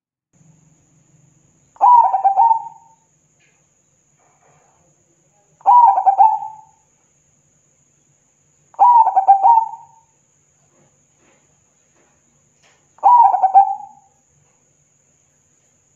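Zebra dove (perkutut) singing: four short phrases of rapid, rolling cooing notes, each about a second long and a few seconds apart.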